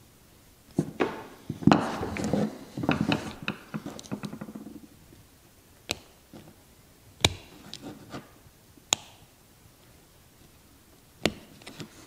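Small screwdriver and pliers prying at the plastic top piece of a flashlight tail-cap switch, which is held in by three plastic tabs: a busy run of scraping and clicking about a second in, then single sharp clicks every second or two. The piece is being forced out and gets mangled.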